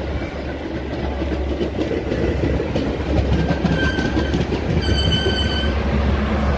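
Metra bi-level commuter train pulling into the station, growing louder: wheels clattering over the rails with a steady low hum. Two short high-pitched squeals come about four and five seconds in.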